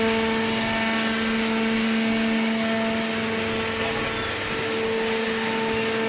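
Cardboard baler's hydraulic power unit running: a steady pitched hum with overtones over a wash of machine noise.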